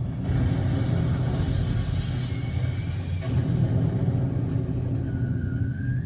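Recorded World War II air-raid sound effects played in a concrete tunnel shelter: a steady low rumbling drone with thin whistling tones gliding in pitch above it, one rising near the end.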